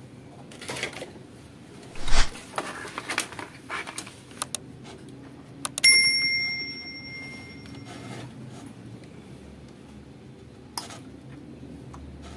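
Knocks and clatter of a circuit board and tools being handled on a workbench, loudest about two seconds in. About six seconds in, a sharp metallic strike leaves a clear high ringing that fades over about two seconds.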